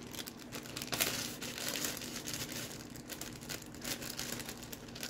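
Plastic bag of dry powdered mix crinkling and rustling in irregular crackles as it is handled and cut open.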